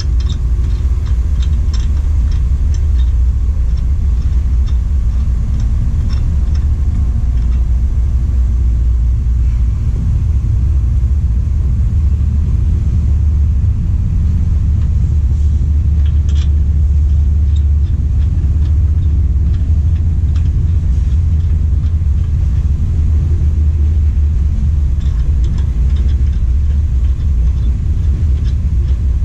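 Steady low rumble throughout, with a few faint metallic clicks from lug nuts being threaded onto the wheel studs by hand.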